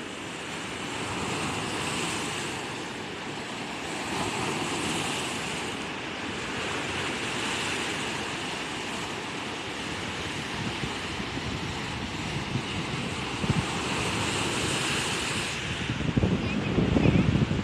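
Sea waves washing on a shore, a continuous surf hiss that swells and eases every few seconds. A louder, deeper rumble comes in near the end.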